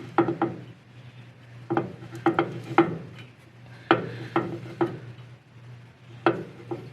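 Metal-on-metal clicks and clunks in short bursts, a few knocks each, repeated about five times: ring and pinion gear teeth taking up backlash as the differential is rocked back and forth by hand.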